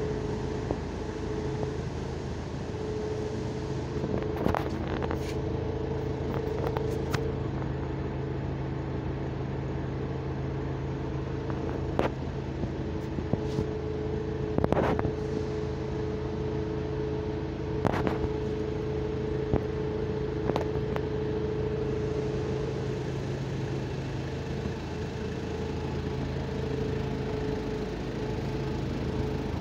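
Steady drone of factory machinery with a constant hum, broken by occasional sharp knocks and clanks.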